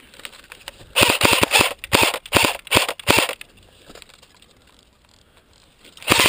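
Airsoft electric rifle (CYMA CM.028 AK-47 AEG) firing: a ragged string of quick shots and short bursts from about a second in, lasting about two seconds, then a rapid full-auto burst starting just before the end.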